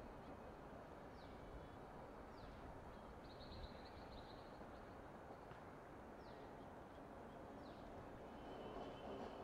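Faint bird calls: short high chirps that slide downward, repeated every second or so, with a brief trill about three and a half seconds in, over a quiet steady background hiss.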